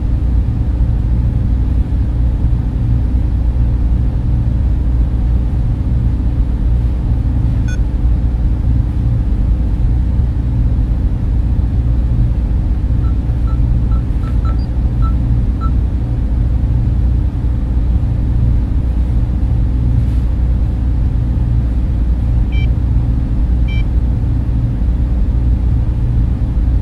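Sci-fi spaceship interior ambience: a loud, steady low rumble, with faint short electronic beeps, a cluster about halfway through and two more near the end.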